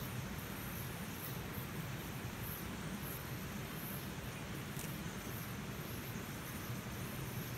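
Evening outdoor ambience: a steady low rumble with high-pitched insect chirps coming in short, irregular pulses.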